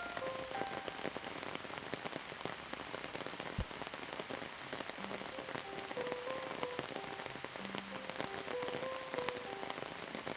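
Steady rain falling on a surface, a continuous hiss dotted with the ticks of individual drops. A soft melody of short held notes plays faintly under it near the start and again from about halfway on.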